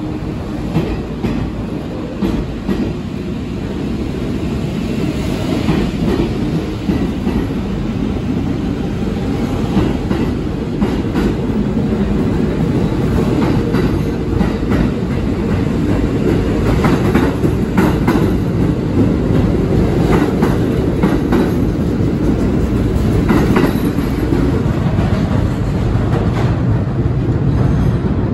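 R46 subway train pulling out and running past on the platform track: a heavy steady rumble of wheels and motors that grows gradually louder, with the clickety-clack of wheels over rail joints through the middle.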